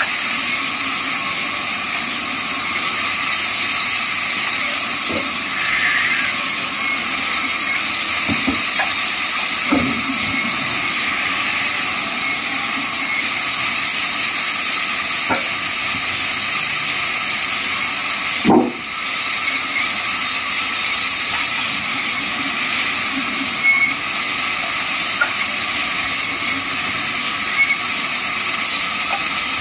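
Large vertical band saw running and cutting through a wooden slab: a steady hissing whine with a constant high tone, and a few knocks of wood on the table, the loudest about two-thirds of the way through.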